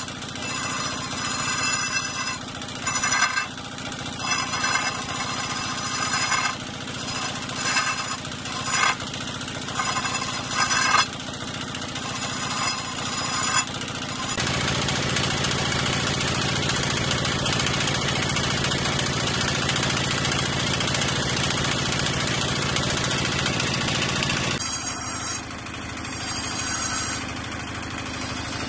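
A wood lathe running while a hand-held chisel cuts into a spinning log, scraping and shaving the wood over a steady motor hum. For the first half the cutting comes in short repeated bursts. Then it holds steadily for about ten seconds before dropping back near the end.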